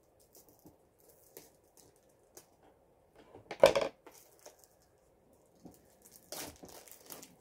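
Packaging handled on a table: scattered light clicks and rustles, then one short, louder burst of handling noise about three and a half seconds in. Plastic wrap on a diamond painting kit box starts crinkling about six seconds in as it is pulled off.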